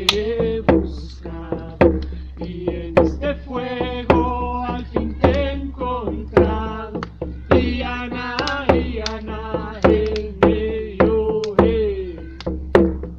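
Chanted song sung over a steady drum beat.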